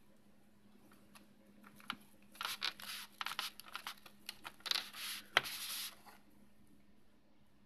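Thin plastic food packaging crinkling and rustling in short bursts as it is handled, with one sharp click about five seconds in. A faint steady hum lies underneath.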